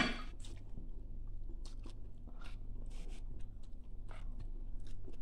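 Eating sounds: chewing with soft crunches and many small irregular clicks, over a steady low hum.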